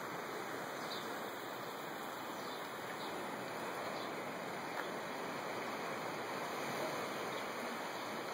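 Steady rushing noise of ocean surf breaking on the nearby shore, with a few faint bird chirps.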